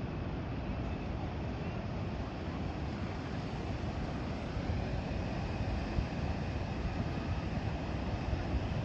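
Steady low rumble of ocean surf and wind on an open beach, even throughout with no distinct events.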